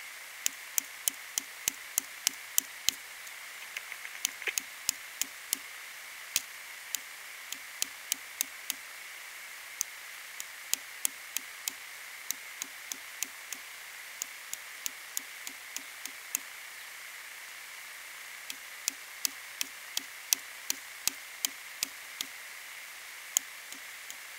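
A hand-held rock hammering a lithium battery to break its casing open: runs of sharp knocks, two or three a second, with short pauses between the runs.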